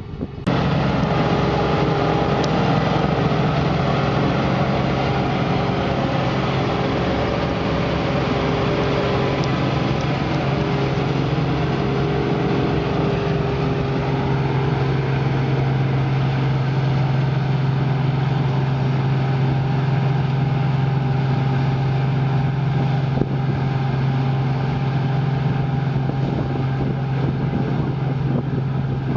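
Diesel engine of a farm machine running steadily at working speed, a loud even drone with a deep hum, starting abruptly just after the start.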